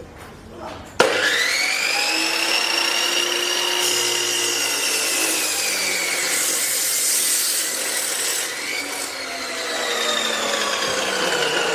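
Nikawa NK-BGS 2500 metal cut-off saw switched on about a second in: its motor whine rises quickly as it spins up, then sinks slowly as the blade is pressed into steel, with a harsh grinding hiss.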